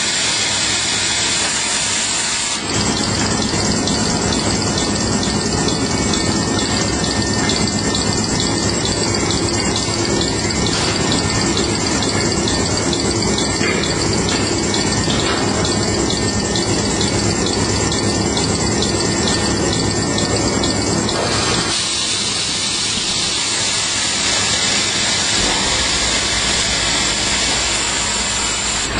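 Paper-rewinding machinery of a toilet-roll and kitchen-towel production line running at speed: a loud, steady hiss and hum of the paper web over rollers, with a fast regular ticking for most of the time that gives way to a brighter, higher hiss about three-quarters through.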